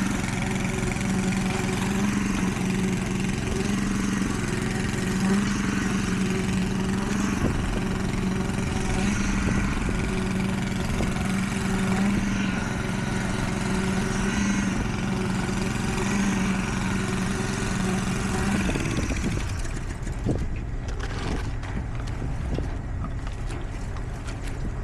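A heavy machine's engine runs steadily at a constant pitch. About three quarters of the way through it gives way to a quieter rushing noise with scattered knocks.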